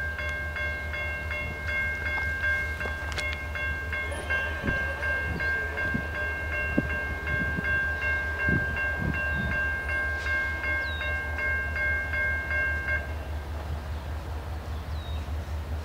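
Electronic railroad grade-crossing bell ringing with rapid, even dings, then cutting off suddenly near the end. A steady low rumble lies underneath.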